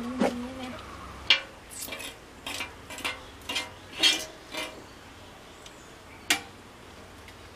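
Stainless steel bowls and cups clinking and knocking, about ten sharp separate clinks over five seconds, the loudest about a second in and again around four seconds in, while masala is worked into a mutton leg in a steel bowl.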